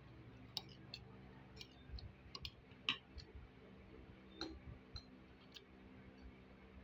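Faint eating sounds from someone eating rice and fish by hand: scattered small clicks and smacks of chewing and handling the food, the loudest about three seconds in.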